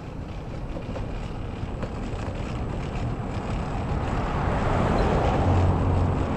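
Road traffic and wind on the microphone while riding a bicycle along a busy road. The noise grows steadily louder as a vehicle passes about five seconds in, with a low engine hum near the end.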